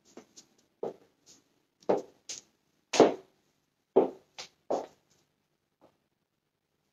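Footsteps on a tile floor: about seven short thuds at uneven intervals.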